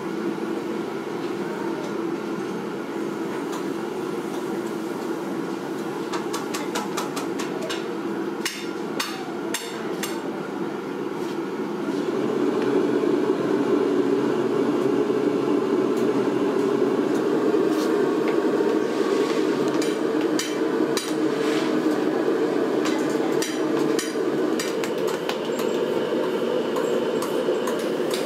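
Workshop background: a steady low hum that grows louder about twelve seconds in, with bursts of sharp knocks and taps about eight seconds in and again through the second half.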